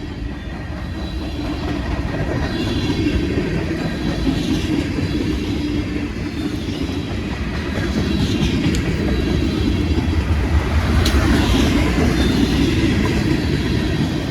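Freight train rolling past on the rails, its wheels rumbling and clacking steadily, growing louder about eight seconds in. A single sharp click comes about eleven seconds in.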